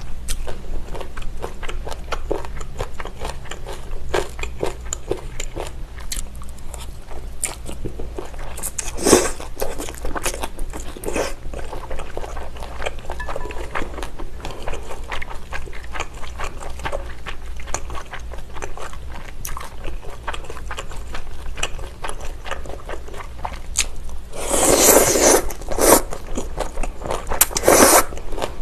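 Close-miked chewing of abalone mulhoe with noodles: a steady run of small wet clicks and crunches from the firm, chewy raw abalone. Louder slurps break in about nine and eleven seconds in, and a longer, louder slurp of noodles and broth comes near the end.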